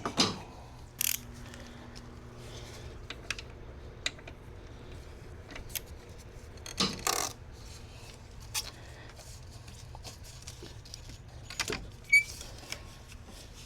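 Metal hand tools and sockets clinking and tapping in scattered, irregular clicks, with a few sharper knocks about a second in, around seven seconds and near the end, as tools are readied to release the belt tensioner.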